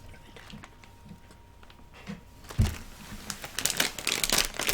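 Plastic snack packet crinkling as it is handled, the crackling getting denser near the end, with a soft thump a little past halfway.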